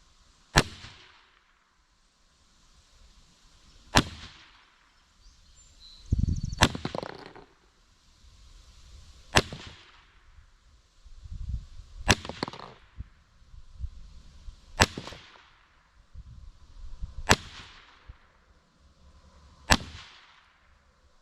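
Huben GK1 Mini .30-calibre PCP air pistol firing eight sharp shots, roughly one every two and a half seconds.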